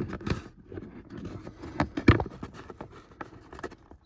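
Fingers tucking a thin cable into the gap along the edge of a car's headliner: light scraping and rubbing with a few sharp taps, the loudest about two seconds in.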